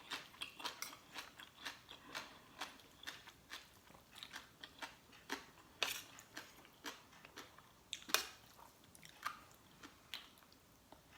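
A person chewing a mouthful of spicy green papaya salad (som tam) with chicken feet close to the microphone: a string of small, irregular crunches and mouth clicks, about two or three a second, with louder crunches about six and eight seconds in.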